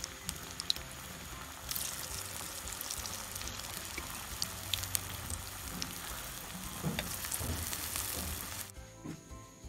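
Hot oil sizzling and crackling around a mashed ash-plantain ball deep-frying in a wok. The sizzle gets louder about two seconds in and falls away near the end.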